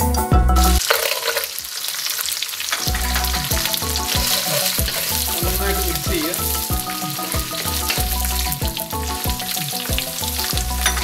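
Peanuts, cashews, curry leaves and dried chillies sizzling in hot oil in a wok, stirred now and then with a wooden spatula. Background music with a steady beat runs underneath.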